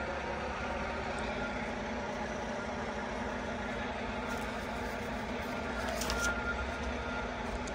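Steady low mechanical drone of idling truck engines, with a faint thin tone over it and a short high clatter about six seconds in.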